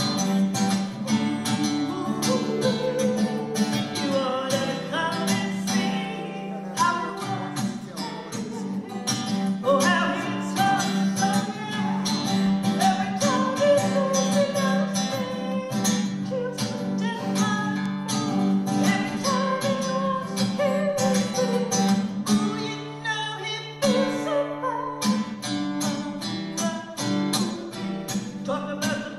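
A woman singing to her own strummed acoustic guitar. About 22 seconds in, the singing breaks off for a few seconds over held chords, then resumes.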